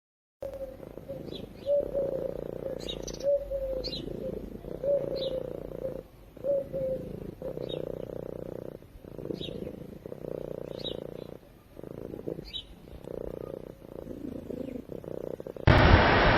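Cat snoring: a low snore that swells and breaks with each breath, over and over, with faint short high chirps above it. Less than a second before the end it cuts suddenly to a louder steady noise.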